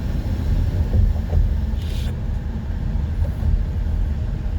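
Road noise inside a moving car: a steady low rumble of tyres and engine, with a short hiss about two seconds in.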